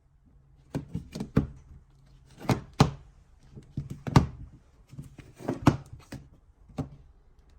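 Smartphones being handled on a hard surface: about a dozen irregular taps and knocks.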